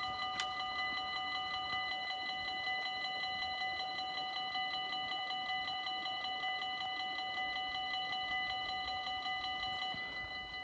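Dutch level-crossing warning bell ringing rapidly and steadily as the half barriers come down. Its ringing grows a little quieter near the end, and there is a single click just after the start.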